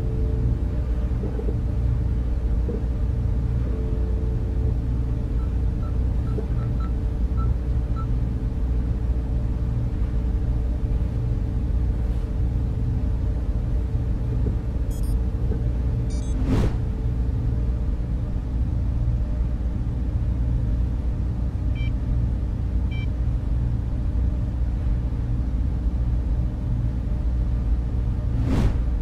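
Background music bed: a steady, bass-heavy synth drone with sustained chords. It is crossed by two whoosh transition effects, one a little past the middle and one near the end.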